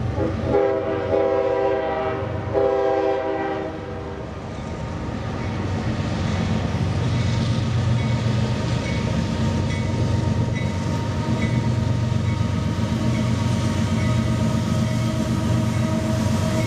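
Union Pacific diesel freight locomotives approaching: two long blasts of the multi-chime air horn in the first four seconds. Then the low rumble of the diesel engines and train grows as the locomotives draw near and pass.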